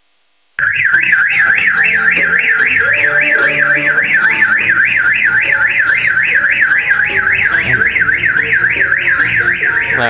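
Newly installed car alarm siren sounding a loud, fast warble, rising and falling about four times a second. It switches on abruptly about half a second in.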